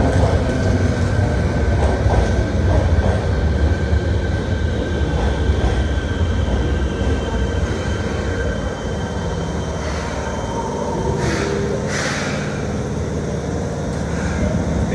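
Fukuoka City Subway 1000N series train running into the platform and slowing to a stop: a low rumble from the wheels with a steady high whine over it, the rumble easing about halfway through. Two short hisses come near the end, after it has stopped.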